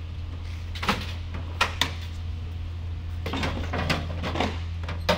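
Cordless impact guns and hand tools being set down and shifted in a metal tool-cabinet drawer: a few sharp clunks about a second in, a cluster of clatter past the middle and another clunk near the end, over a steady low hum.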